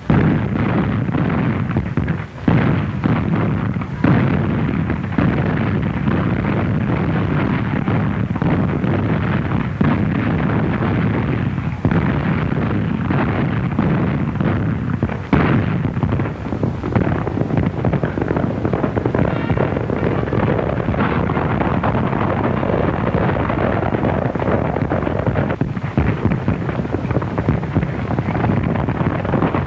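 Battle sound effects on an early sound-film soundtrack: a continuous noisy din of gunfire, with repeated sharp shots and cannon blasts at irregular intervals.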